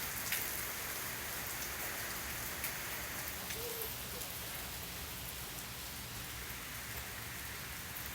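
Steady rain falling and pattering on surfaces, with a few faint drips.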